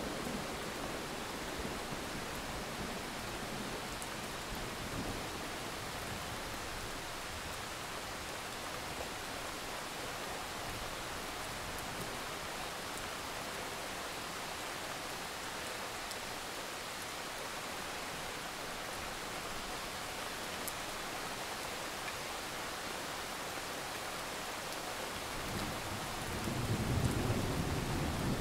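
Steady rain falling, a constant hiss of drops. Near the end a low rumble of thunder rolls in and swells.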